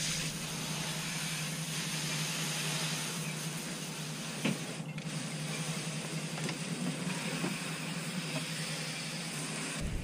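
Garden hose spraying water onto a sailboat's hull and deck: a steady hiss, with a low steady hum beneath it and a few faint clicks, one a little louder about four and a half seconds in.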